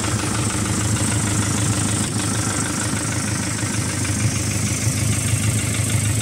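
1999 New Holland TL70 tractor's diesel engine idling steadily.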